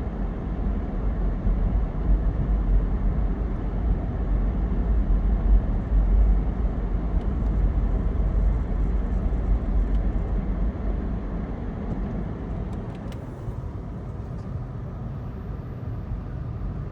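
Strong wind buffeting the microphone, a gusting low rumble that swells and eases, quieter toward the end, with a few faint clicks near the end.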